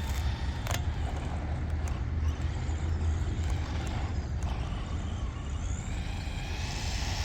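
Brushed electric motor of a JJRC Rigid C8805 1/14-scale RC desert truck running, with a faint whine over a steady low rumble.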